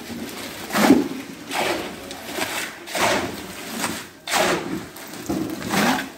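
A steel shovel scraping and scooping wet cement mix off a concrete floor and into buckets, in repeated strokes about every 0.7 seconds.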